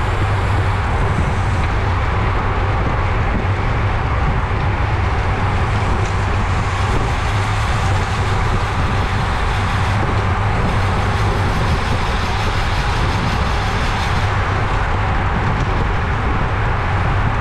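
Steady, loud wind rush over a bicycle-mounted camera's microphone while riding at racing speed.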